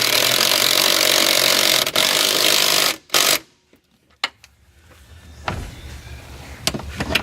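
Power wrench spinning a 15 mm strut bolt, a loud steady whir for about three seconds, then a short second burst. A small click follows.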